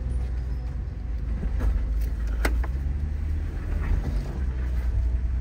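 Jeep Gladiator's engine running at low speed as it crawls its second tire over a trail rock, a steady low rumble. A sharp knock about two and a half seconds in.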